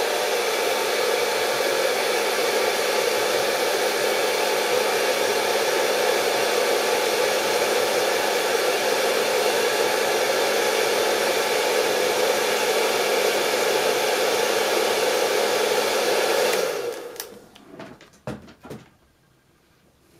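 Handheld hairdryer running on nail foil adhesive to dry it: a steady rush of air with a motor hum, switched off about four-fifths of the way through and winding down. A few soft knocks follow.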